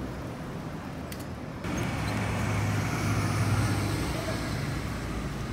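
Street traffic noise: a motor vehicle running and passing close by, with a low engine hum that is loudest near the middle. The noise steps up abruptly about one and a half seconds in.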